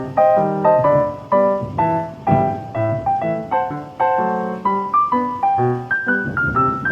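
Background piano music: a steady run of single struck notes and chords at a brisk, even pace.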